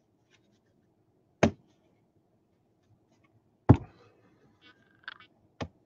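Three sharp knocks on a desk as trading cards and packs are handled and set down, the second, about halfway through, the loudest, with a faint rustle just before the last.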